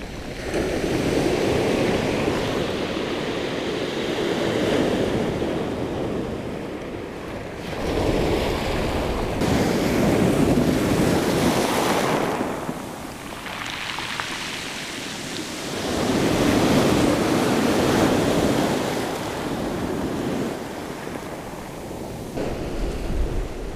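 Rough sea breaking and washing up a shingle beach in three big surges about eight seconds apart, with wind on the microphone.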